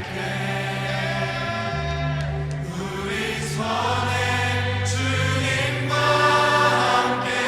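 Slow contemporary worship backing track in G at 65 BPM with the piano part left out: sustained pad chords over held bass notes that change every couple of seconds.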